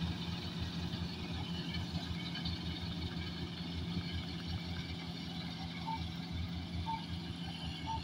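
Combine harvester running while it harvests: a steady engine and machinery drone with a low hum and fast low pulsing. Short faint beeps come about once a second in the last couple of seconds.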